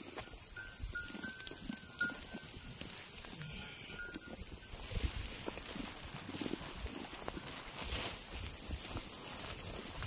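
Insects chirring in one steady high-pitched drone, with faint footsteps and rustling through grass underneath.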